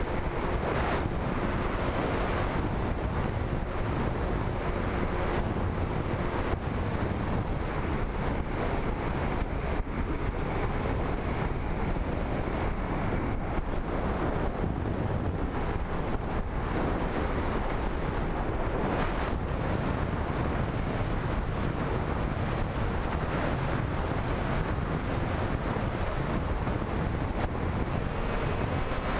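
Wind rushing over the microphone of the camera on a flying RC wing in gusty air, a steady dense rush. A faint thin high tone runs through it for several seconds midway.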